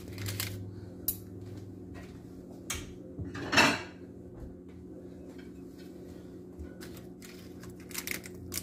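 Kitchen clatter of dishes and utensils being handled: scattered light clicks and knocks, with one louder rattle about three and a half seconds in. A steady low hum runs underneath.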